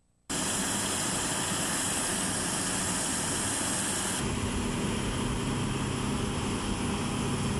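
Steady, loud jet-turbine noise from aircraft on an airfield, starting suddenly just after the beginning and shifting abruptly in tone about four seconds in.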